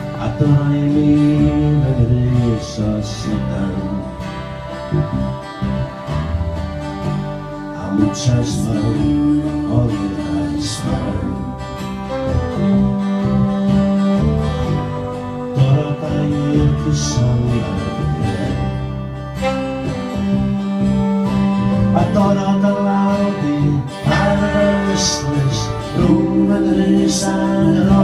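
A man singing a Welsh-language folk song through a microphone while strumming an acoustic guitar.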